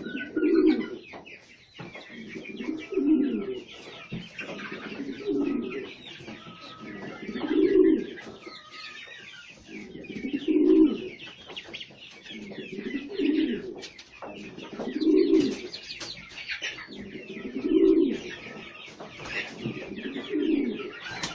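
Pigeons cooing over and over, a low coo roughly every two to three seconds, about nine in all, with smaller birds chirping throughout.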